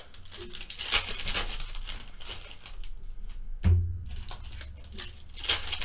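Foil baseball card packs crinkling and cards rustling as they are handled and stacked by hand, with one dull thump about three and a half seconds in.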